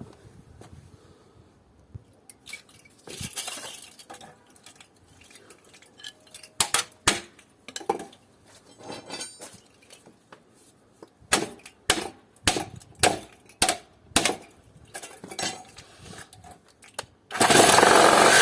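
Sharp metal strikes and clanks as the metal housing of a scrap air conditioner is chopped apart: a run of separate hard blows, thickest in the second half. Near the end a power saw starts and runs loudly.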